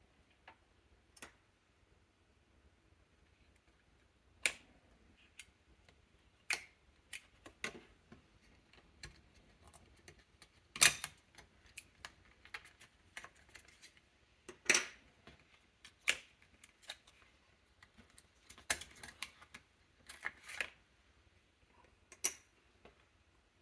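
Irregular sharp clicks and taps of small plastic and metal laptop parts being handled during an SSD and RAM upgrade, with a few louder snaps scattered among fainter ticks.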